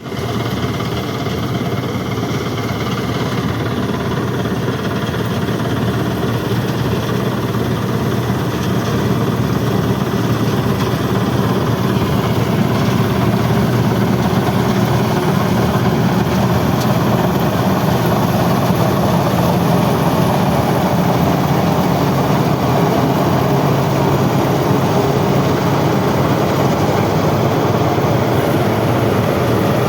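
Combine harvester running steadily while cutting paddy: a dense, even machinery noise with a low engine hum, growing slightly louder over the first half.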